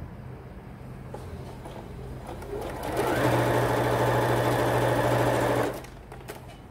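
Electric sewing machine stitching a seam through patchwork cotton fabric in a steady rapid run for under three seconds, starting about halfway in and stopping abruptly. Light clicks and fabric handling come before and after the run.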